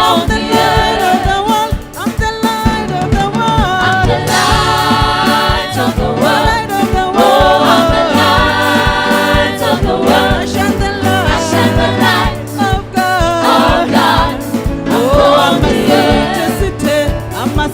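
Gospel worship music: a choir singing over a band with a steady beat.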